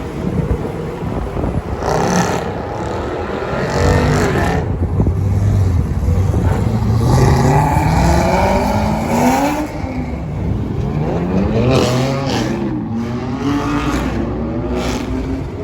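Car engine accelerating hard in several pulls, its pitch rising through each and dropping between them, over steady road noise.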